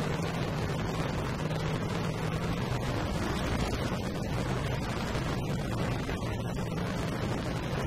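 Motorcycle engine running steadily under way, with wind and road rush on the bike-mounted microphone and other motorcycles riding alongside.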